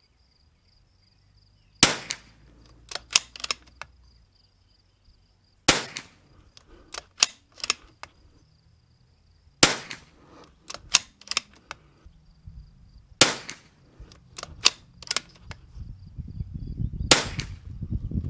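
Five .22LR rifle shots about four seconds apart, fired from a RimX bolt-action rifle with Lapua Center-X ammunition. Each shot is followed by a few sharp clicks of the bolt being worked. A faint steady insect chirr runs underneath.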